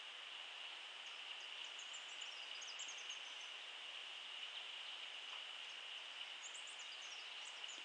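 Faint tropical outdoor ambience: a steady, high insect drone with clusters of quick, very high chirps from about one to three seconds in and again near the end.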